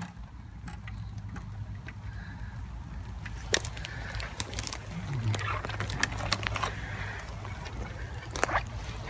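Footsteps and twigs snapping and crackling in woodland undergrowth as someone moves through it, scattered sharp cracks over a steady low hum.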